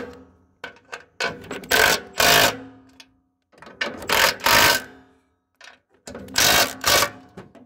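Milwaukee cordless impact wrench hammering in three short bursts of about a second each, run down the nuts on the carriage bolts of a snowblower jackshaft's bearing flangettes a little at a time, side to side, so they pull in evenly.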